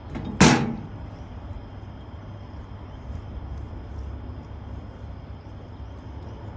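A single loud clunk about half a second in, then a steady low background hum.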